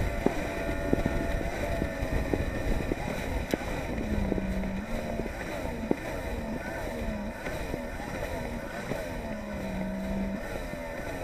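Polaris SL 900 personal watercraft's three-cylinder two-stroke engine running at speed, its pitch wavering with the throttle, over the hiss of spray and wind on the microphone. A few sharp knocks now and then.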